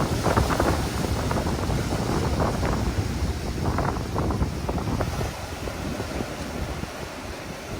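Wind buffeting the microphone in uneven gusts, easing about five seconds in.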